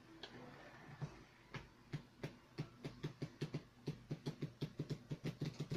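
Deck of playing cards being riffle-shuffled on a felt-covered table: a run of short card clicks, a few at first, quickening toward the end.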